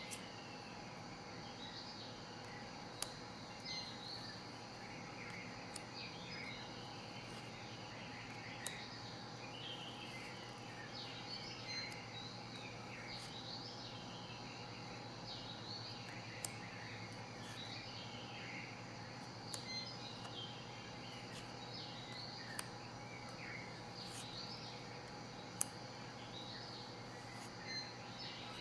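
Birds twittering and chirping continuously, with a handful of sharp clicks about every three seconds as playing-card-sized cards are laid down on a stack.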